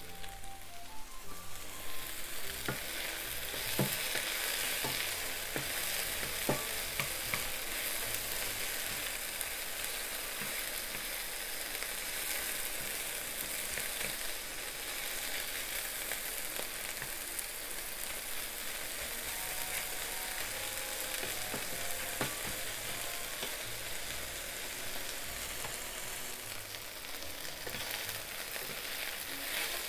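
Pieces of chicken breast sizzling steadily in hot vegetable oil in a frying pan as they brown, stirred with a wooden spatula that clicks and scrapes against the pan a few times.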